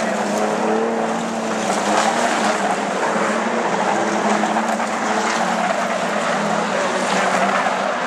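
Engines of several Street Stock sedans racing on a dirt oval, with several engine notes rising and falling together as the cars accelerate and lift.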